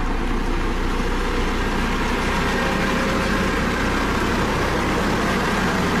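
Dynapac CC522 tandem asphalt roller's diesel engine running steadily at a constant pitch.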